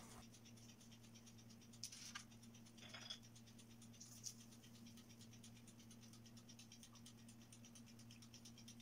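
Near silence with a steady low hum, and a few faint, brief scratching rustles about two, three and four seconds in as a ball of cookie dough is rolled in a bowl of sesame seeds.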